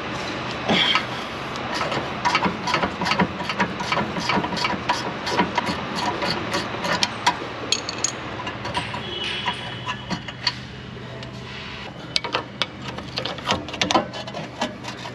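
Rapid metallic clicking and knocking of hand tools on steel as the rear brake caliper carrier bolts are worked loose.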